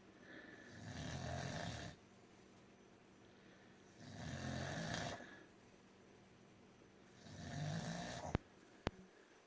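Cocker spaniel snoring loudly in its sleep: three long snores about three seconds apart. Two sharp clicks near the end.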